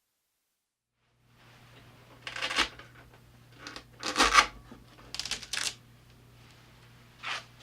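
A few short rubbing or scraping sounds, the loudest about four seconds in, over a low steady hum.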